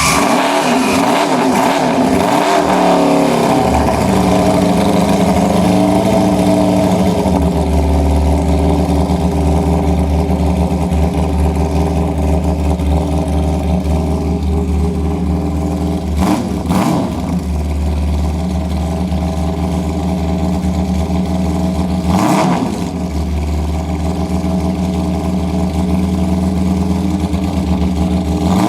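Early-1970s Honda 500 four-cylinder race bike's air-cooled inline-four engine warming up, with a barking exhaust. It comes down from a rev at the start, then runs steadily, dipping briefly and picking up again twice in the second half.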